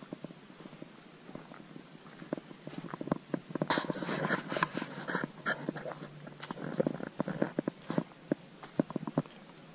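Footsteps crunching on a gravel path, a busy run of irregular crunches and clicks that is loudest a few seconds in.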